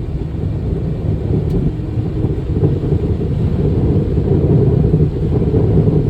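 Steady low rumble of a vehicle driving, heard from inside the car, with no distinct knocks or breaks.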